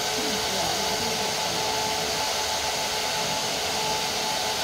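Hair dryer running steadily: a constant blowing whir with a faint steady hum.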